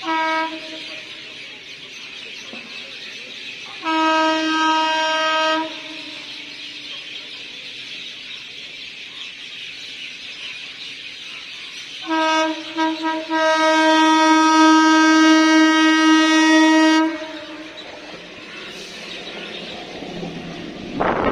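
Indian Railways EMU local train sounding its horn on approach: one steady pitch, as a short toot, a blast of about a second and a half, two quick toots, then a long blast of nearly four seconds. Near the end the train reaches the platform and its carriages rush past with a rumbling wheel noise.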